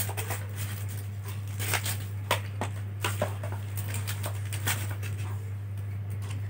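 2.5-inch laptop hard drive being pressed and slid into a plastic HDD caddy, with scattered small clicks and scrapes at irregular intervals over a steady low hum.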